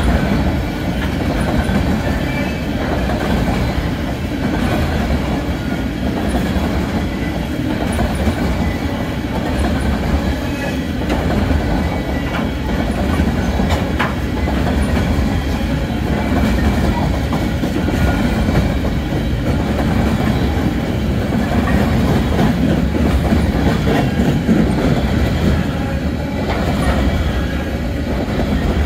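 Freight train's steel-wheeled coal hopper cars rolling steadily past, their wheels clattering over the rail joints, with one sharp click about halfway through.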